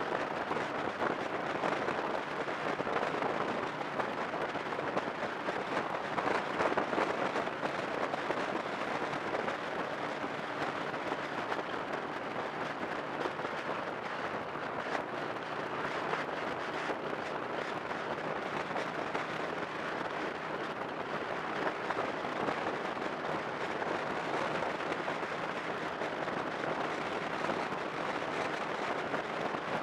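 Steady road noise of a car cruising on a highway: tyre roar and wind rushing, with no engine note standing out.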